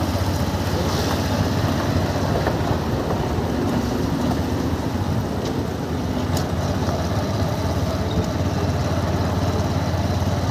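Steady engine and road noise from a small vehicle riding along a street, running evenly without revving.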